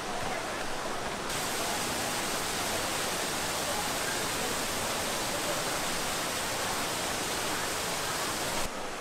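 Steady rushing of a waterfall, an even hiss with no rhythm. It turns brighter and fuller a little over a second in and drops back to a duller rush near the end.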